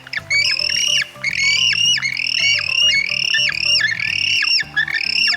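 Penguin calling: a fast run of harsh, arched squawks, about three a second, over background music.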